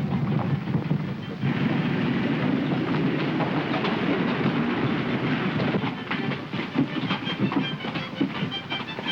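Train running on the rails, its wheels clattering over the rail joints in a dense, continuous rumble that grows fuller about a second and a half in.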